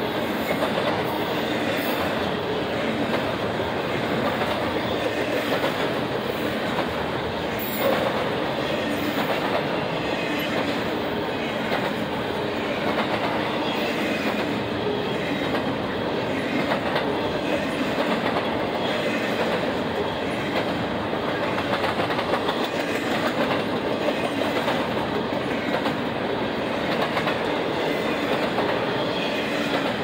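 A Union Pacific intermodal freight train's double-stack container well cars passing close by at speed: a steady, unbroken rolling noise of wheels on rail, with one sharper knock about eight seconds in.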